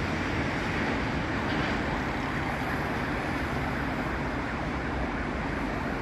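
Steady road traffic noise: cars driving along a busy city avenue, an even, continuous rushing sound with no siren in it.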